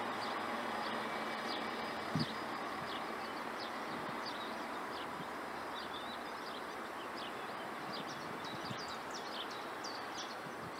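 A steady rumble of a train slowly fading away, with small birds chirping over it. There is a single brief thump about two seconds in.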